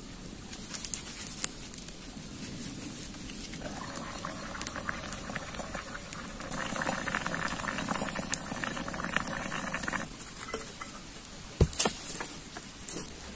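A pot of liquid boiling hard over a small wood fire, a dense bubbling fizz with crackles and pops, which starts and stops abruptly. Near the end, a few sharp knocks.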